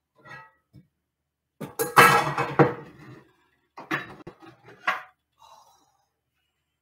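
Pots and pans clattering and knocking together as cookware is handled, loudest in a burst about two seconds in, then a few sharper knocks about four and five seconds in.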